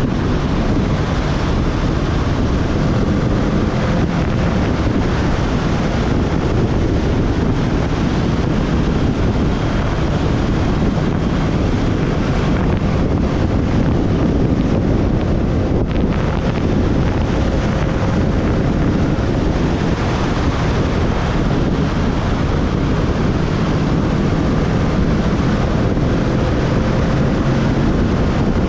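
Wind buffeting the microphone of a moving motorcycle, a steady rushing noise over the faint drone of the motorcycle's engine cruising at an even speed.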